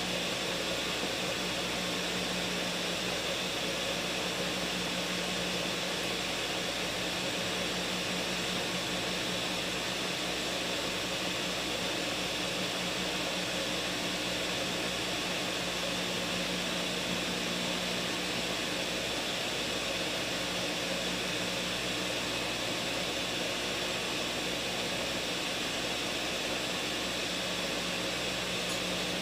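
Ninja countertop blender running steadily through a thick green smoothie of frozen strawberries and leafy greens: an even motor whir with a constant low hum. It is given a long blend because the thick mix gave it trouble.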